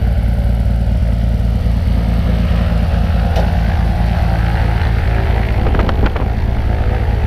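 A light single-engine propeller plane's engine running steadily at idle on the ground, propeller turning.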